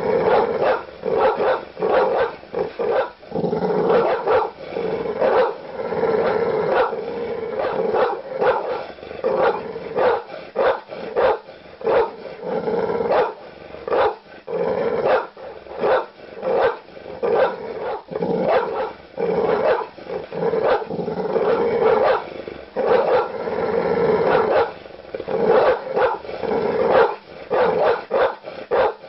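Large dog barking aggressively with deep barks, one after another in quick succession without a pause.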